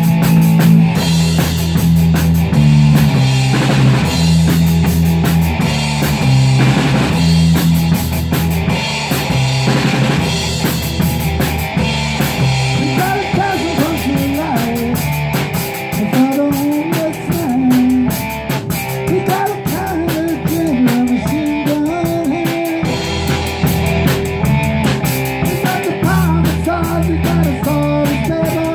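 Live rock power trio playing: electric guitar, bass guitar and a close-miked drum kit driving a steady rock beat. A wavering melody line rises over the band from about halfway through.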